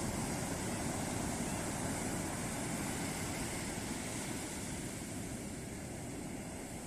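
Ocean surf breaking on a beach: a steady rush of waves that eases slightly in loudness toward the end.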